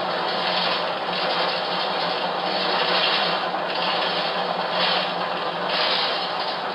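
Recorded bus noise from onboard security-camera footage, played back through computer speakers: a steady noisy rumble of the moving bus with gentle swells, its top end cut off like low-quality recorded audio.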